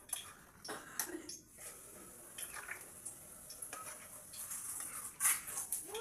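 A metal spoon clinking and scraping against a cooking pan as vegetable curry is stirred, with several short sharp knocks scattered through it.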